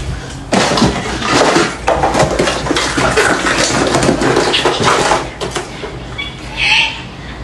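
Clattering and rattling of a plastic first-aid box, its clear lid and contents being handled, with many quick knocks for several seconds, then a short hissing sound near the end.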